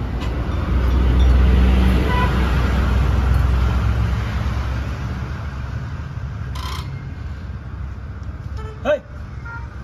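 A motor vehicle's engine rumbling low and steady, loudest in the first few seconds and easing off. About nine seconds in there is a brief toot that bends in pitch.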